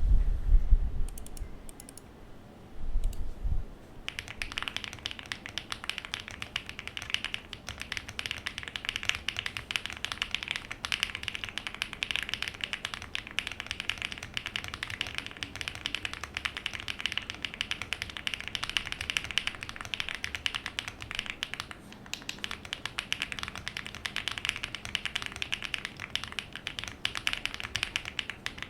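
Fast, continuous typing on the alpha keys of a Weikav Record spring-mounted aluminium mechanical keyboard with Sillyworks Hyacinth v2 linear switches and GMK Panels keycaps, starting about four seconds in. Before it, a few low thuds.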